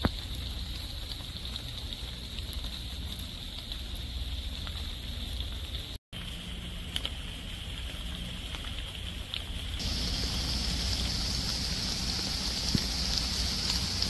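Steady rain falling on forest leaves and leaf litter, with scattered drops ticking. It breaks off for an instant about six seconds in, and from about ten seconds in becomes a louder, brighter hiss.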